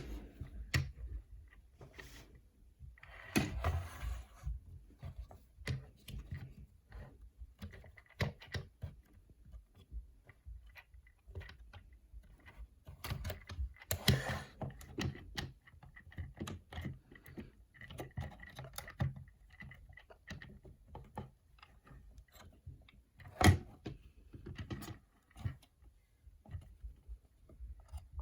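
A plastic action figure and its packaging being handled: scattered light clicks and taps, a few short rustles, and one sharper knock about three-quarters of the way through.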